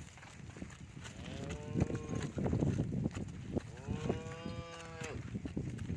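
A dairy cow mooing twice: a short moo, then a longer one, each rising and then held. Low thuds run underneath.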